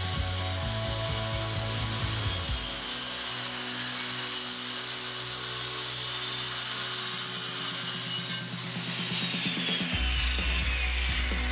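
Electric jigsaw running with its blade against a wooden board, a steady buzzing hiss, with background music over it. Over the last few seconds a tone slides steadily downward.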